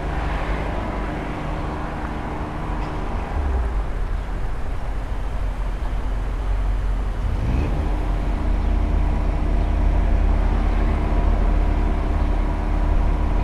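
Road traffic: a motor vehicle engine running with a steady hum over a low traffic rumble; the hum drops out a few seconds in and comes back with a brief rise in pitch about halfway through, growing a little louder toward the end.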